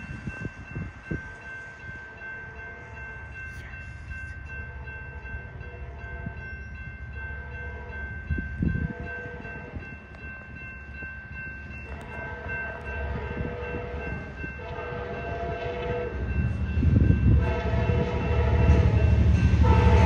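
Horn of an approaching Amtrak California passenger train's diesel locomotive, sounding a series of long and shorter chime blasts for the grade crossing. The blasts grow louder, and the locomotive's low rumble builds near the end as the train draws close.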